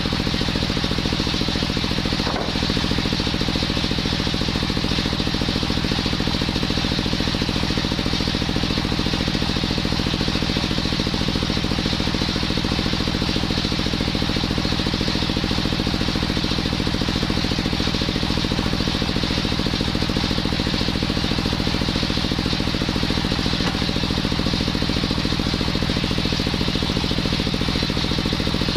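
Engine-driven circular wood saw running steadily at a constant speed, with a brief dip in level about two seconds in.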